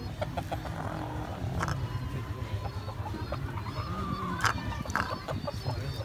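Chicken clucking in short calls, with a few sharp clicks, one about a second and a half in and a louder one near the end.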